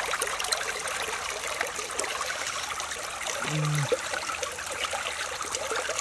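Steady trickling of running water with many small wet clicks, and a short voice sound about three and a half seconds in.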